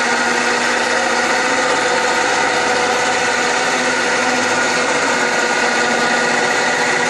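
Electric winch motor running steadily under load, reeling rope onto its drum as it pulls a Sea-Doo personal watercraft up the loading rails. A steady hum with several fixed tones that holds at one pitch throughout.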